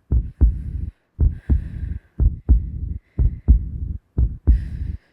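A heartbeat sound effect: steady lub-dub double thumps, about one beat a second, standing for a character's anxiety.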